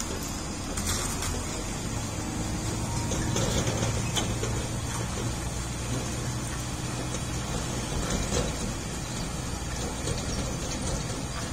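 Heavy box truck's diesel engine running low and steady as the truck crawls round a steep hairpin, with a few brief sharp clicks and knocks.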